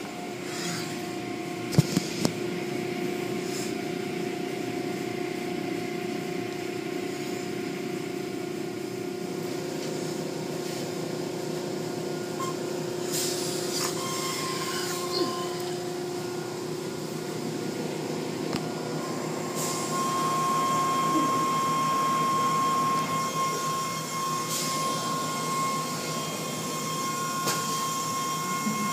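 Automatic tunnel car wash running, heard from inside the car: a steady hum of machinery with the wash of spray and cloth brushes over the body. A couple of sharp knocks come about two seconds in, and about two-thirds through it gets louder and a steady whine joins.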